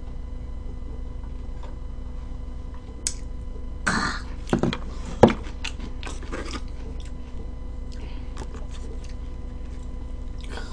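A fork clicking and scraping against a plastic takeout tray while cutting hotcakes, with a few sharp clicks about four to five and a half seconds in and fainter taps later. A steady low electrical hum sits underneath.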